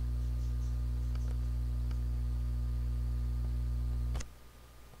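Steady low electrical hum on the recording, with a few faint clicks of a computer mouse. A sharper click comes about four seconds in, and the hum drops out right after it.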